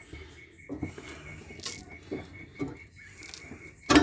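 Irregular knocks and scrapes of hand tools working on a scrapped solar inverter, about half a dozen short hits, ending in a louder ringing metal clank.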